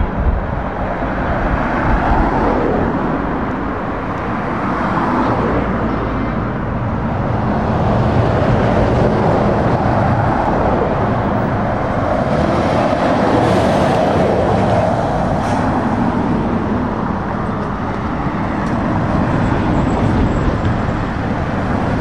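Road traffic passing: a Scania 460R bulk tanker lorry's diesel engine and tyres grow louder as it approaches and drives past about midway, among passing cars.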